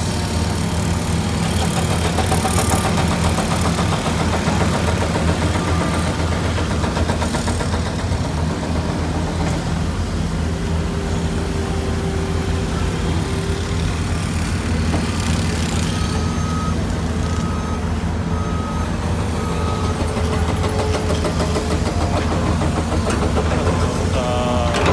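Heavy vehicle or construction machine engine running steadily with a low drone. A short run of evenly spaced beeps, about one a second, sounds about two-thirds of the way through.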